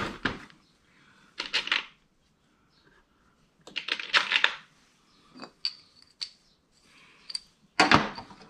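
Small metal parts clattering on a workbench as they are rummaged through and handled, in short bursts with a few single clicks between, and a louder clatter near the end.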